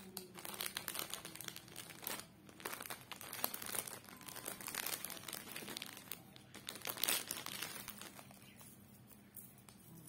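Crinkling and rustling of product packaging being handled and opened, in irregular bursts, loudest about seven seconds in and dying down near the end.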